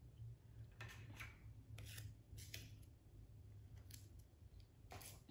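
Faint, irregular short rips and crinkles of masking tape being torn by hand into small strips and pressed onto a screen-printing screen's mesh.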